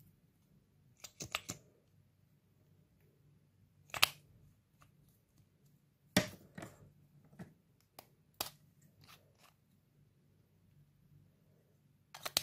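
Sharp plastic clicks and taps from makeup tubes and their caps being handled and pulled open: several separate clicks, some in quick little clusters, with quiet gaps between.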